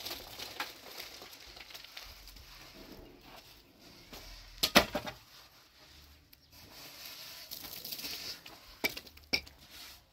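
A few sharp knocks over a steady hiss: a loud close pair about halfway through and two lighter ones near the end.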